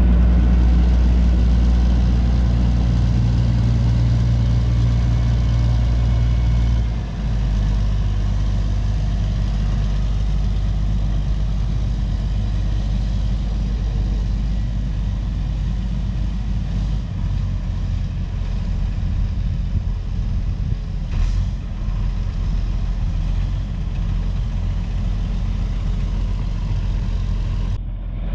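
Big TJ375 four-wheel-drive tractor's diesel engine running steadily under light throttle. Its engine note drops about seven seconds in and again briefly later.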